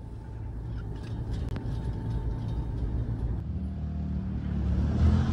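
Low rumble of a train running, with a faint steady whine. About three seconds in it gives way to street traffic, with a vehicle engine running close by and growing louder.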